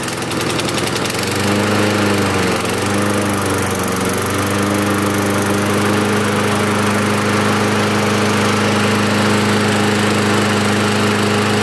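Petrol lawnmower engine running after a cold start. It picks up about a second in, its speed dips twice, and then it settles to a steady run. It is running on fresh petrol after months of standing unused.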